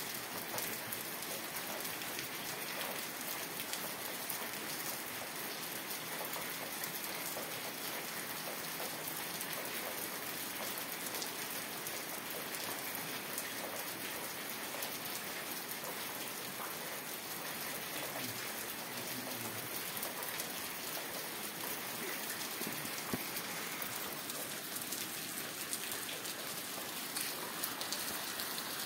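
Steady rain falling, an even hiss with a dense patter of fine drops.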